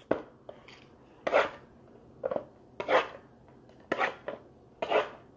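Trading-card mini boxes being handled and opened: a sharp tap at the start, then about six short rasping, rustling strokes of cardboard and a foil wrapper.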